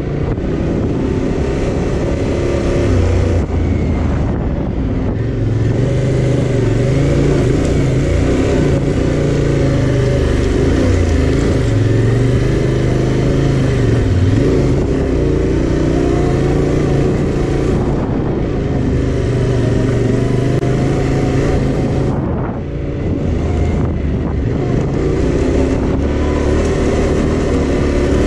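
Yamaha Tenere 700's parallel-twin engine running under way, its pitch rising and falling with the throttle, with a brief dip about two-thirds through.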